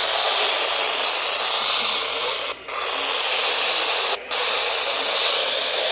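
Steady static hiss from a weather radio receiver picking up a weak, noisy signal, with a thin, tinny sound. It cuts out briefly twice, near the middle.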